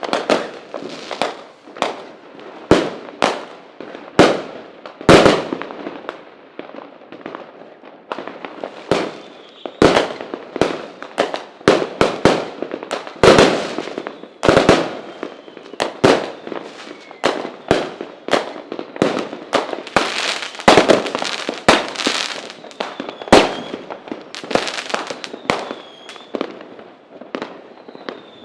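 Fireworks going off in a dense, irregular string of sharp bangs and cracks, some loud and close, others fainter.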